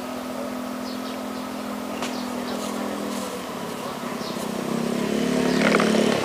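Motor scooter engines: one running steadily, then another motorcycle passing close by, growing louder over the last two seconds.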